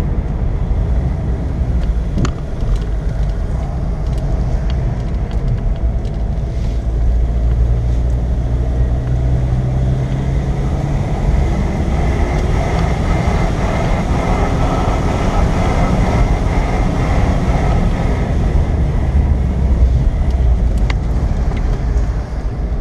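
Car engine and tyre noise heard from inside the cabin while climbing a winding mountain road. The engine holds a steady note, then its pitch shifts about eleven seconds in as the car takes a hairpin.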